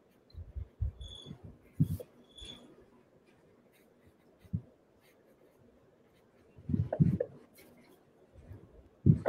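Pen or marker writing on paper at a desk: faint scratching with scattered dull knocks, and two brief high squeaks about one and two and a half seconds in.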